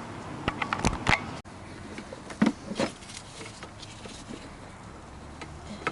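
A few sharp knocks and clunks as tools and parts are handled during a truck battery swap.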